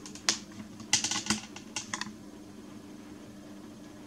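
A quick run of light, sharp clicks and taps during the first two seconds, then they stop, leaving a steady low hum underneath.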